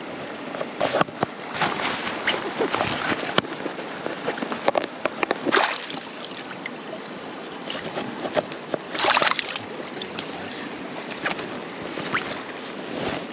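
Flowing river water with repeated splashing and sloshing at the surface as a freshly caught sea trout is held in the water before release, with two louder splashes about five and nine seconds in.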